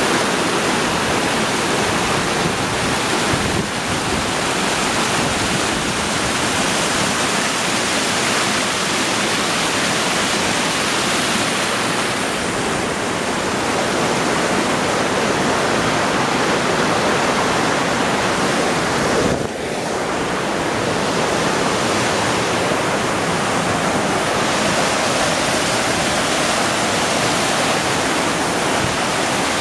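Mountain creek rushing over rocks and small cascades: a loud, steady noise of running water, with a brief dip about two-thirds of the way through.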